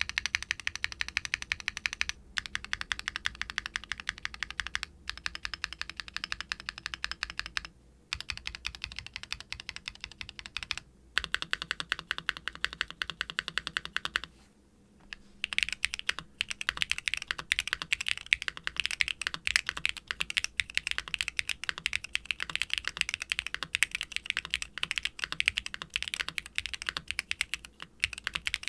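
Fast typing on a mechanical keyboard: an aluminium QK x ATK Hex80 with Gateron Orchid HE linear switches (all-POM housings and stem), a carbon fibre plate, no case foam and GMK doubleshot ABS keycaps. The keystrokes come in quick, steady runs with short pauses, and a longer pause about halfway through.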